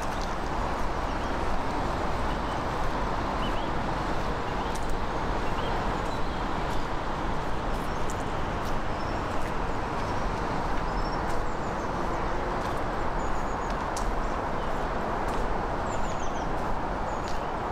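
A steady rushing noise, with small birds chirping and twittering briefly here and there over it, and a few faint clicks.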